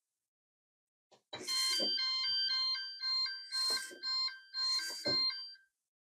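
Small hobby servo motor driven back and forth from the transmitter's throttle stick, buzzing and whining in several short runs with a pitch that steps up and down.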